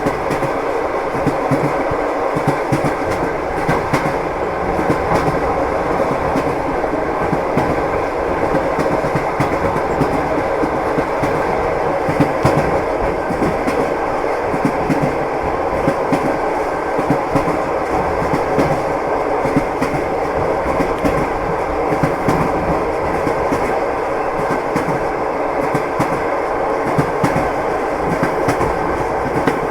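Train wheels knocking over the rail joints: a steady running rumble with a continual irregular clatter of sharp clicks.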